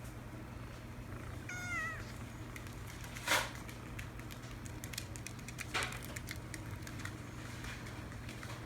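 A kitten gives one short, high, wavering mew about a second and a half in. After it come scattered light clicks and rustles, the loudest a sharp knock a little after three seconds.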